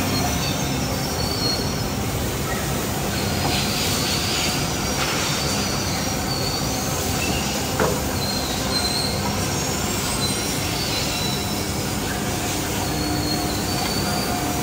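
Holztek HT-R1D CNC router's spindle machining a plywood panel: a steady machine noise with high whining tones that come and go, and one short click about eight seconds in.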